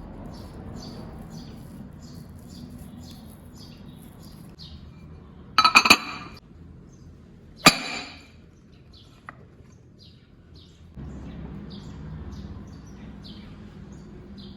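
Birds chirping over and over in the background. About six seconds in comes a brief rattling clatter of hard objects, and about two seconds later a single sharp clink that rings briefly, like glass or ceramic kitchenware knocking together.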